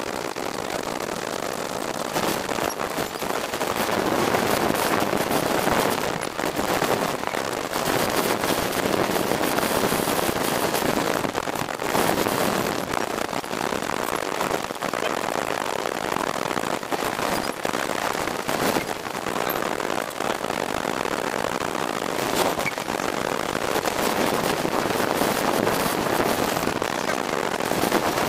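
Wind buffeting the microphone of an open street go-kart on the move, mixed with the kart's engine and road noise, heard as a steady, dense crackling rush.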